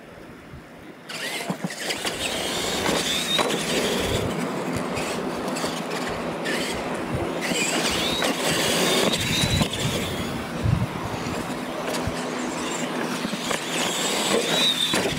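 Electric RC monster trucks of the Tamiya Clod Buster type launching off the start about a second in, their motors and gearboxes whining up and down as they race over dirt. Several sharp thumps come as the trucks land off the wooden jump ramps.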